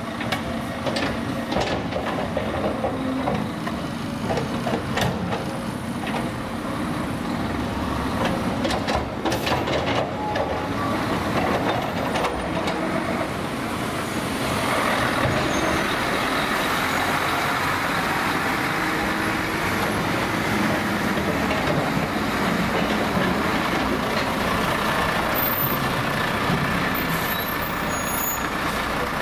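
Cat 323D tracked excavator working, with scattered clanks and knocks. From about halfway, a Mercedes-Benz Actros tipper truck's diesel engine runs close by as the truck drives past, and it becomes the loudest sound.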